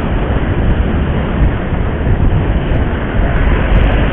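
Steady rumble and road noise of riding a motorcycle through city traffic, heaviest in the low end.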